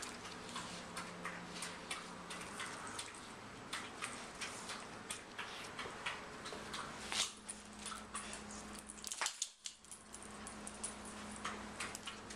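Two small dogs tussling over a de-stuffed plush cat toy on a rug, making irregular light clicks and rustles.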